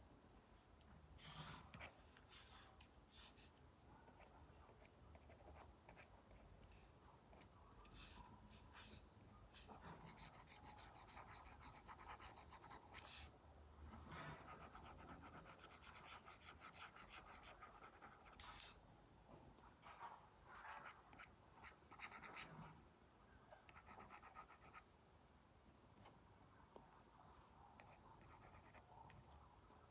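Apple Pencil tip stroking and tapping on an iPad fitted with a paper-like matte screen protector: soft, scratchy drawing strokes with occasional light taps, faint throughout.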